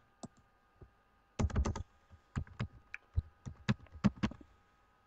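Typing on a computer keyboard: a quick run of keystrokes about a second and a half in, then single keys pressed more slowly, one by one, for about two seconds.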